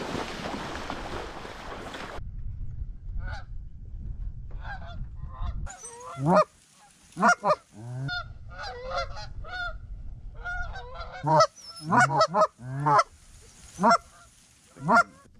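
Splashing of feet wading through shallow pond water for about two seconds, then a series of loud Canada goose honks and clucks in irregular groups.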